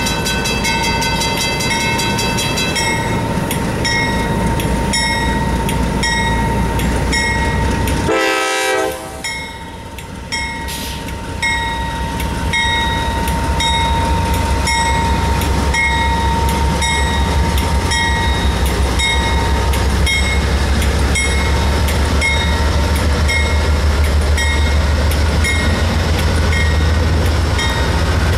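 Norfolk Southern GE D9-40CW diesel locomotives approaching and passing a grade crossing. A horn note sounds in the first few seconds, and the crossing bell dings about once a second throughout. The locomotives' engine and wheel rumble grows loud in the second half as the lead unit comes alongside.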